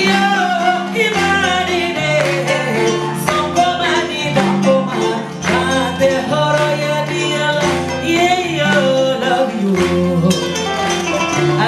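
Live Malian music: a woman sings a wavering, ornamented melody over plucked kora and a stepping bass guitar line.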